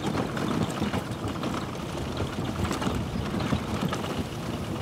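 EnvoDrive electric ATV being driven, a steady rumbling travel noise with no engine note.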